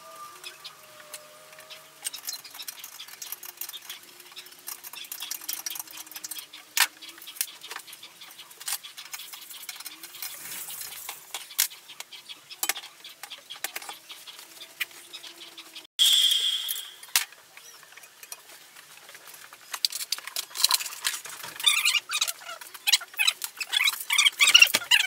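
Scattered clicks and knocks of metal parts being handled and fitted onto a steel scooter frame, then near the end a dense rattling of small hardware being picked through in a plastic tray.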